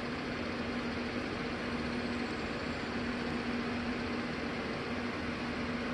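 A steady mechanical hum with an even hiss, unchanging throughout.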